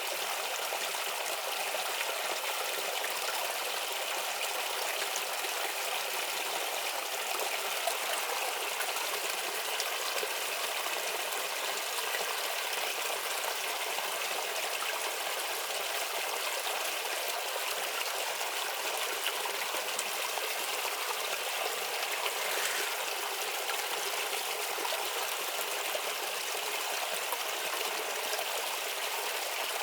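Shallow stream babbling and trickling steadily over stones.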